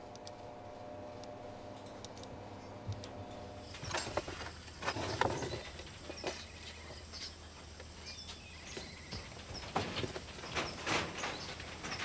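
A steady low hum, then from about four seconds in, rustling and light knocks with a few faint chirps: the ambience of wooden, wire-mesh fox cages.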